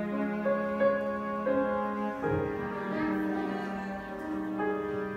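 Piano and cello playing a slow piece together, the cello holding long low notes under the piano's changing chords.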